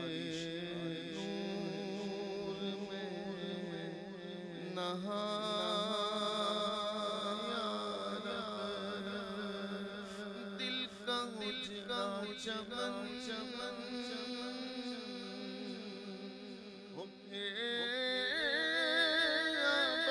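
A man's voice chanting a slow, melismatic devotional recitation into a microphone, with long held notes that waver in pitch. It breaks off briefly and comes back louder about three seconds before the end.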